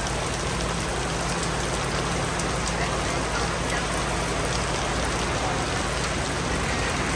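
Shower rain falling steadily, an even hiss of rain on the ground and surrounding surfaces.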